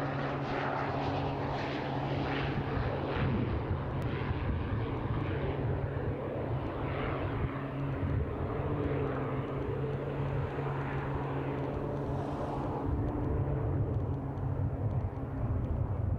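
Steady drone of a single-engine floatplane's propeller engine, a firefighting air tanker flying low over the lake.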